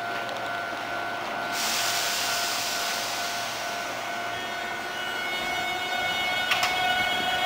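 Hankyu 8000-series electric train setting off from a platform. A steady electrical whine is joined by a hiss about a second and a half in. About five seconds in, the higher tones of its Toshiba VVVF inverter set in as it starts to draw power, with a single sharp click shortly after.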